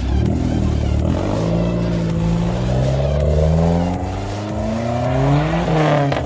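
Car engine accelerating hard, its pitch climbing steadily for about five seconds, then dropping sharply near the end.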